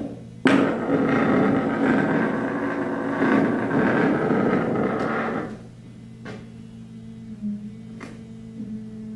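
Dense rumbling noise texture from a live experimental sound performance, with a sharp click about half a second in. Around five and a half seconds in it drops away, leaving a low steady hum and a couple of faint clicks.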